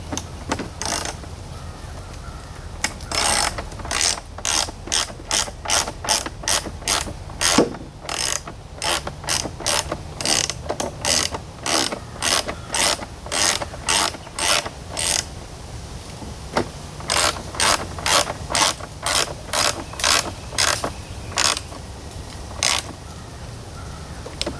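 Hand ratchet wrench being worked back and forth on a nut, a burst of ratchet clicks about twice a second with a short pause partway through.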